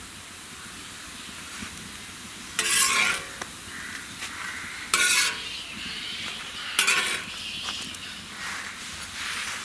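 Metal spatula scraping across a flat griddle three times, about two seconds apart, over a steady sizzle of parottas frying in oil.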